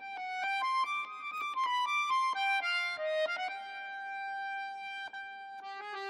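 Instrumental music starting abruptly out of silence: a melody played note by note with a bowed or reed-like tone, slowing to long held notes in the middle and picking up with quick repeated notes near the end.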